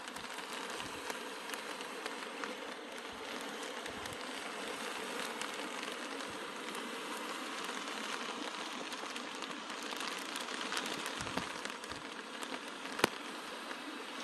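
Rain falling: a steady hiss scattered with many small drop ticks, and one sharper tap near the end.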